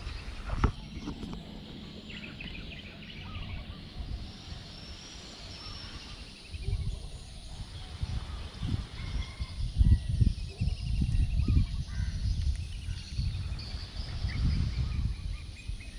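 Birds chirping and trilling in short repeated series, over low wind gusts buffeting the microphone that pick up from about six seconds in. A single knock sounds less than a second in.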